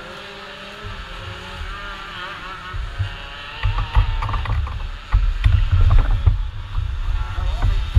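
Rumbling buffets on a camera microphone, uneven and louder from about halfway in, with a scattered series of sharp clicks and knocks.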